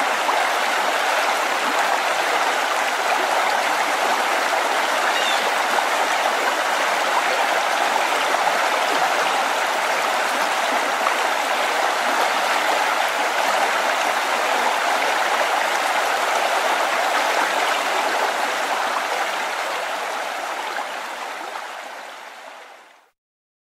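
Flowing river stream, a steady rushing and babbling of water, that fades out over the last few seconds and cuts off.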